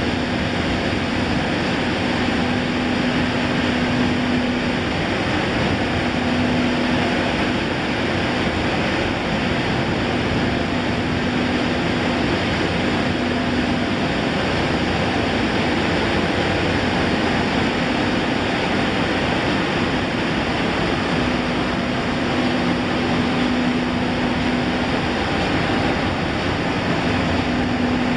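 Rice-husk cyclonic furnace and paddy dryer running: a steady rushing roar of air and machinery, with a low hum that fades in and out every few seconds.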